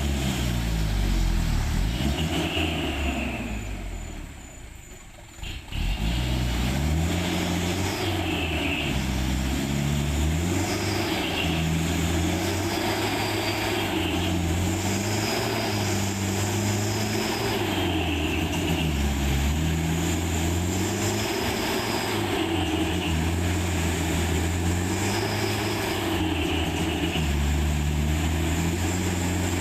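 Truck engine labouring on a rough climb, its pitch rising and falling again and again as it revs and eases off. The sound fades away about four seconds in and comes back sharply near the six-second mark.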